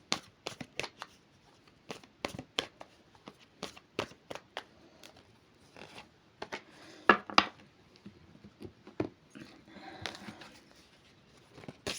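A deck of oracle cards shuffled and handled by hand: irregular dry snaps and flicks of card against card, with a short stretch of rustling near the end.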